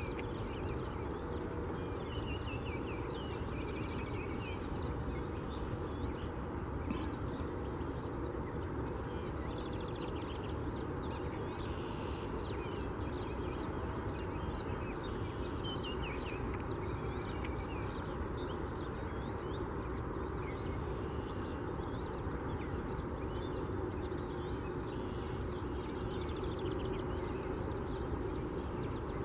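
Several birds chirping and singing in a morning chorus, many short calls and trills overlapping, over a steady low background rumble.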